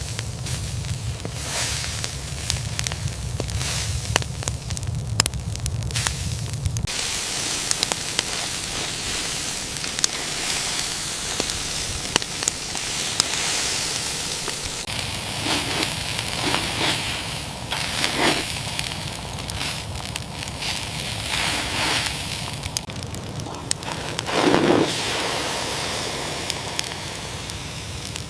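Steady crackling and hissing with many small clicks, and a few louder rustles and knocks around the middle and near the end.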